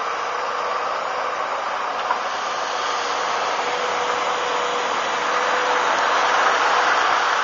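Volvo EC290BLC excavator's diesel engine and hydraulics working under load as it digs soil and lifts a full bucket: a steady, noisy drone with a faint whine, growing a little louder over the last couple of seconds.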